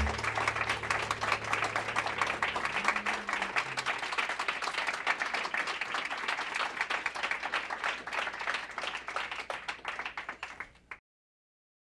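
Audience applauding, a dense patter of claps that slowly fades and cuts off abruptly near the end.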